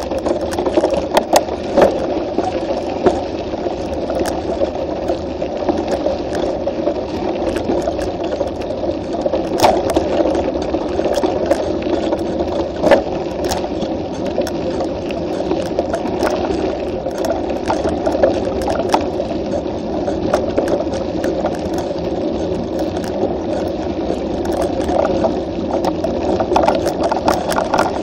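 Mountain bike rolling fast down a dirt road, heard from a camera mounted on the bike: a steady rumble of the tyres on the loose surface with constant rattling, and now and then a sharper knock over a bump.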